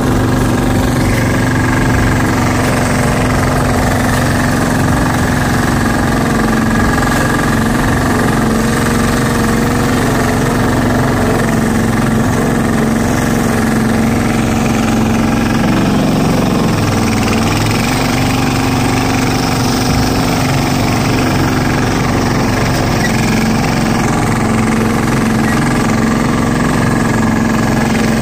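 Single-cylinder diesel engine of a two-wheel walking tractor (patpat) running under way, loud and steady with a knocking beat; its pitch dips briefly about two-thirds of the way through, then recovers.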